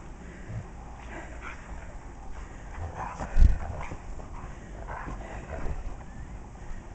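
Dogs play-fighting in deep snow, giving short yips and whimpers, with a loud low thump about three and a half seconds in.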